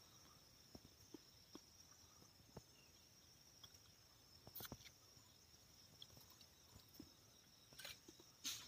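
Near silence with a faint, steady, high-pitched insect chorus, broken by scattered soft clicks and a few sharper ticks about halfway and near the end.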